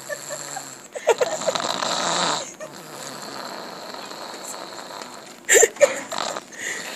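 Loud rasping snoring: one long snore about a second in, then a shorter, sharper burst a little after five seconds in.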